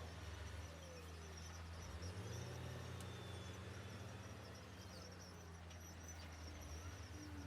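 Faint, steady drone of heavy-equipment diesel engines running at a distance, the engine note shifting slightly a couple of times.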